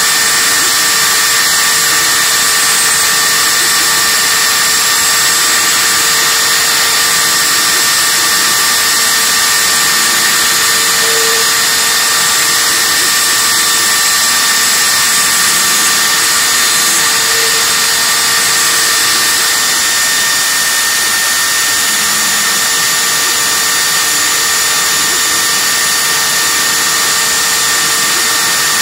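High-speed spindle of a Proxxon CNC mill running at about 45,000 rpm, its small end mill cutting Ureol (polyurethane tooling board). It makes a steady whine over a continuous hiss.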